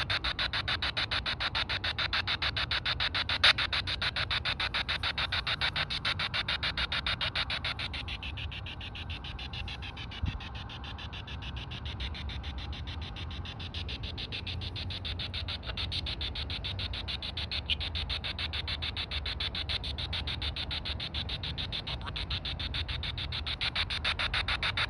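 P-SB7 spirit box sweeping FM radio channels at 150 ms a step: a rapid, choppy run of static bursts, a little softer after about eight seconds.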